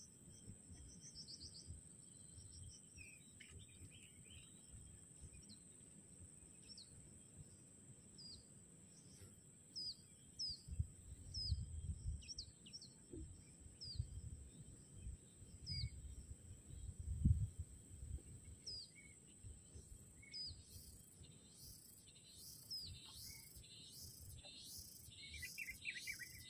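A bird calling over and over with short falling chirps, about one a second, over a steady high-pitched insect drone. Low rumbles come and go midway, and near the end a fast pulsing insect chirr starts up.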